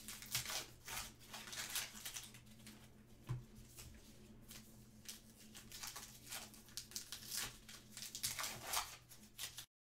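Trading card pack wrappers being torn open and crinkled by hand, with the cards inside being handled, a run of short crinkling and rustling noises over a steady low hum. The wrappers tear apart easily. The sound cuts off suddenly just before the end.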